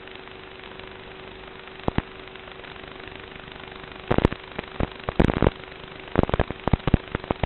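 Sharp knocks and bumps of a small camera being picked up and handled, its microphone taking the blows: one pair about two seconds in, then bursts of them in the second half. Under them runs a steady hiss with a faint hum.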